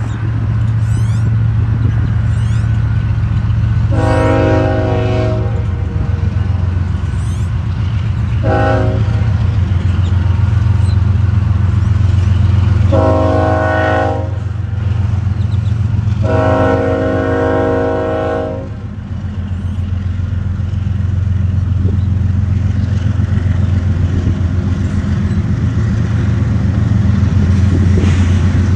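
Union Pacific diesel freight locomotive sounding its air horn for a grade crossing: four blasts, the second one short and the last the longest, over a steady low rumble.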